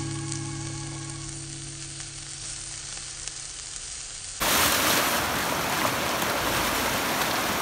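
Music fading out over faint sizzling and crackling from chicken skewers on a charcoal grill. About four seconds in, it cuts suddenly to much louder rushing river water and splashing from a swimmer in the current.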